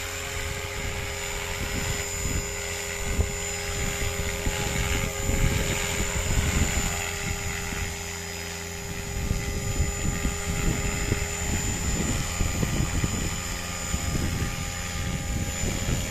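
Radio-controlled scale Cobra helicopter in flight: a steady high motor whine over the rush of the rotor blades, growing louder and softer by turns.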